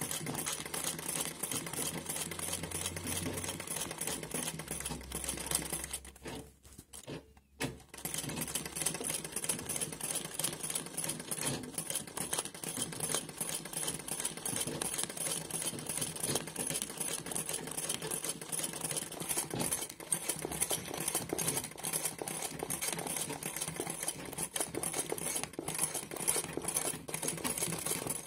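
Straight-stitch sewing machine running fast for free-motion embroidery: a rapid, even clatter of needle strokes, stopping briefly about six seconds in and then running on.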